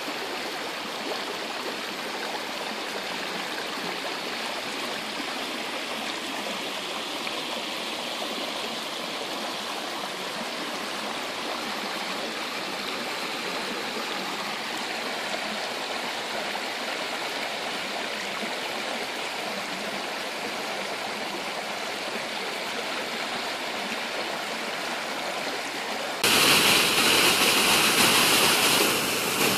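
Swollen, muddy creek rushing steadily between its banks. About 26 seconds in the sound turns suddenly louder and brighter as the water pouring over a small cascade comes close.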